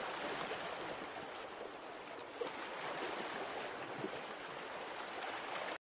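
Steady rushing water, with a brief tick about two and a half seconds in, cutting off suddenly near the end.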